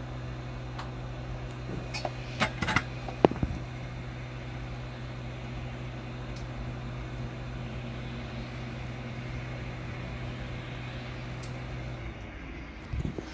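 Steady electric hum of a small fan motor on a microsoldering bench, cutting off about twelve seconds in. A few light clicks of tools come around two to three seconds in.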